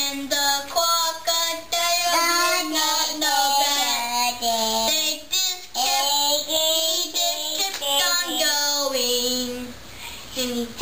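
A child singing, held notes that rise and fall in a simple tune.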